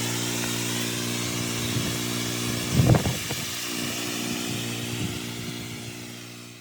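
Pressure washer running steadily with water hissing out of the hose, with one brief louder surge about three seconds in; the sound fades out near the end.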